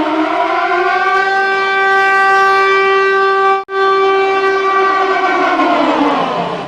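Siren wail played in reverse: one steady pitched tone that glides up at the start, holds level, drops out for an instant a little past the middle, then slides down in pitch and cuts off sharply.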